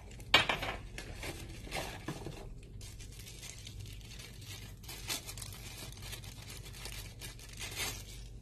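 Packaging being crinkled and torn open while unpacking, with a loud rip about half a second in and further irregular rustles through the rest.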